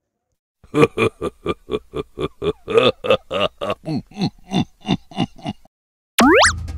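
A cartoon character's long laugh: about twenty short, deep 'ha' syllables at roughly four a second, each dropping in pitch. Near the end a loud rising boing sound effect sweeps up in pitch.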